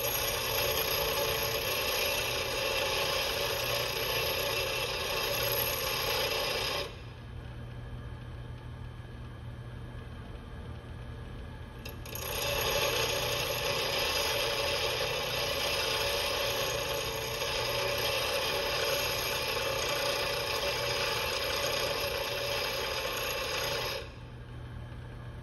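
Bench grinder running while a steel cold chisel is sharpened against its wheel: two long passes of grinding noise, each several seconds, with a pause of a few seconds between where only the motor's steady hum remains.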